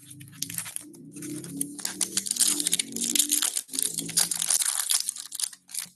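Foil wrapper of a 2024 Topps Series 1 baseball hobby pack being torn open and crinkled by hand.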